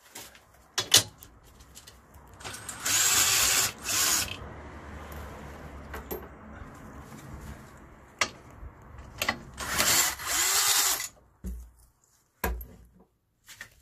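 Cordless impact wrench undoing the 16 mm crossbar bolts under a BMW E90: two bursts of hammering, each about a second and a half long and some six seconds apart. Short metallic clicks and knocks from sockets and bolts come between them.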